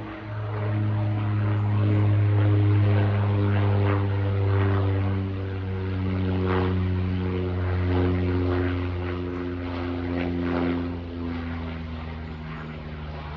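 Single-engine propeller plane flying overhead: a steady propeller drone whose pitch slowly falls as it passes, loudest a couple of seconds in and fading gradually toward the end.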